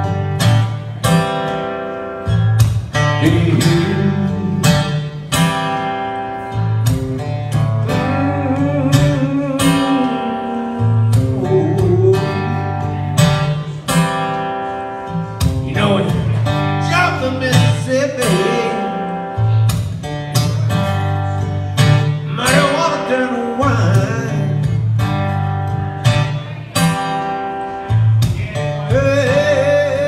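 Eastman E10OM steel-string acoustic guitar playing a slow blues with strummed chords and a repeating bass-note pattern, while a man sings over it.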